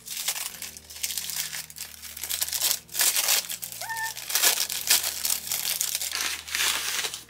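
White packing paper crinkling and rustling as hands pull it apart to unwrap a parcel. The rustles come in an irregular string, with a short vocal sound about four seconds in.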